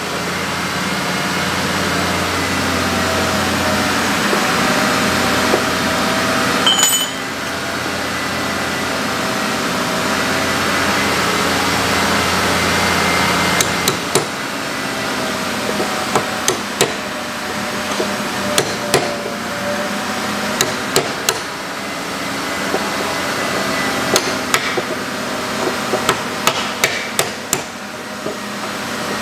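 Hand hammer tapping a metal driver to seat a bushing in the centre of a disc-harrow hub seal: a run of sharp metal taps, irregular and at times several a second, starting about halfway through. A steady machine hum runs underneath.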